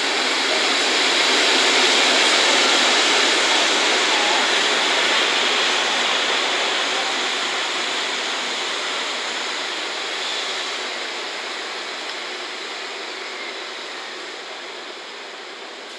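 Slow freight train of an EF65 electric locomotive towing the dead C57 steam locomotive passing close by, a steady rushing hiss of the moving train. It is loudest about two seconds in and fades as the train moves off along the platform.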